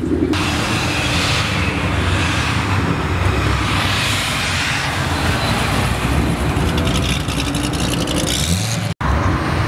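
Car engines and exhausts running loudly as sports cars drive out of a parking lot, with a deep, steady rumble. The sound cuts out for an instant near the end.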